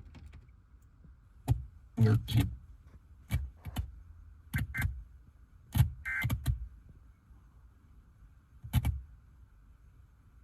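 About ten irregularly spaced knocks and clicks, sharp and short, over a faint steady hum.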